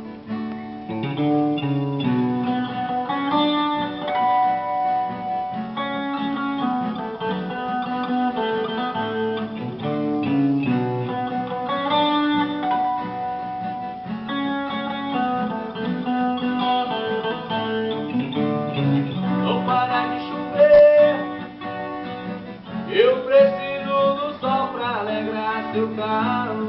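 Instrumental intro of a romantic pop song, led by plucked acoustic guitar over a steady band, with a sliding note that rises about 23 seconds in.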